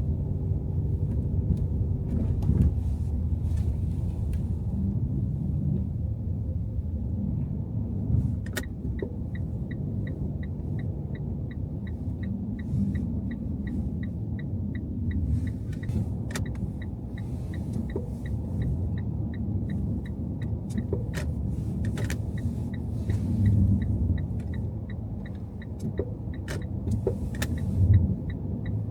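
Car driving on a snowy city street, with a steady low road rumble. From about nine seconds in, a turn-signal indicator ticks evenly at about two a second. A few sharp knocks stand out.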